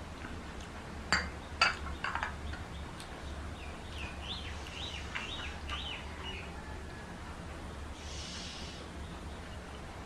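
Dishes clinking a few times in quick succession, then a small bird chirping repeatedly for a couple of seconds.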